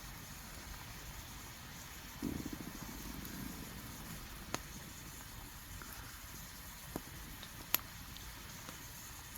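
Wood campfire burning with a steady low rustle and three sharp crackling pops, the last the loudest. About two seconds in, a brief low fluttering rumble rises over the fire.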